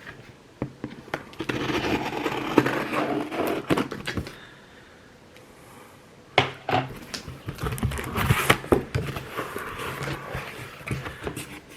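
Cardboard shipping box being opened and its packing rustled and shifted by hand, with sharp knocks and scrapes, pausing for a couple of seconds midway.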